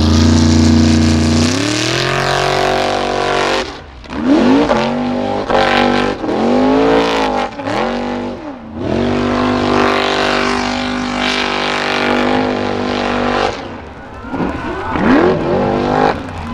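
Formula Offroad buggy's engine at full throttle on a steep gravel climb, its pitch rising and falling again and again as the spinning tyres grab and slip, with a sustained high-revving stretch in the middle. Gravel and dirt spraying from the paddle tyres hiss underneath.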